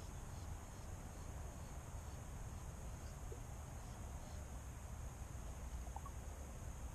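Outdoor ambience: a steady high insect drone over a low rumble, with a few faint short chirps.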